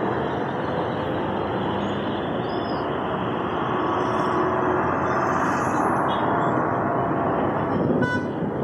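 Steady din of city traffic heard from above, with a few short car-horn toots.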